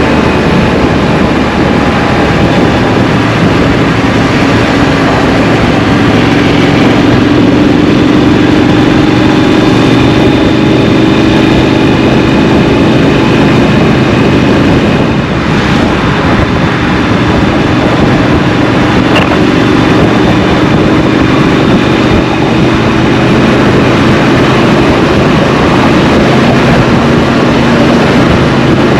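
Triumph Street Scrambler's 900 cc parallel-twin engine running under way, its pitch slowly rising and falling with the throttle, over a heavy wind rumble on the microphone.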